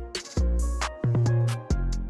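Background music with a steady beat: deep bass notes and drum hits.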